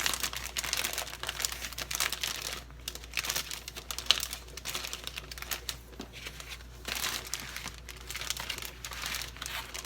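A bag crinkling and rustling in irregular bursts as it is handled and seasoned okra is put into it.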